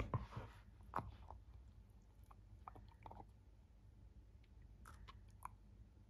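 A dog crunching and chewing an ice cube: sharp crunches loudest right at the start and about a second in, then fainter, scattered ones.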